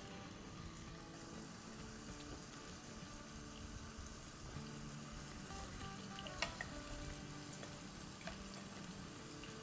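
Cubed potatoes, wet from their soaking water, sizzling in hot oil as they are dropped into the pan a spatula-load at a time. Soft background music runs underneath, and a single sharp clink comes about six and a half seconds in.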